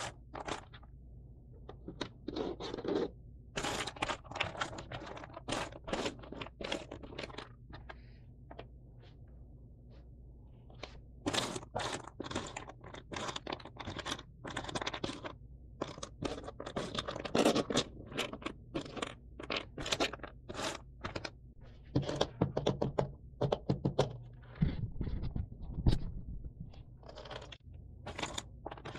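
Cardboard jigsaw puzzle pieces being handled and shifted on a table: irregular small clicks, taps and scrapes, with a pause about eight seconds in and a few heavier knocks a little past twenty seconds.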